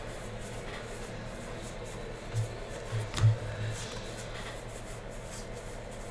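Trading cards being flipped and slid across one another in the hands, a soft papery rubbing with a light tap a little after three seconds in.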